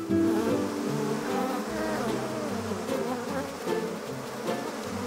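Buzzing of many bees flying about, a cartoon swarm sound effect whose pitch wavers as the bees pass.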